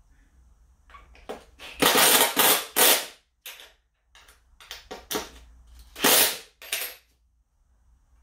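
Cordless power driver driving screws through a metal anchor plate into a plywood platform, in a series of short bursts. The longest burst comes about two seconds in and another about six seconds in.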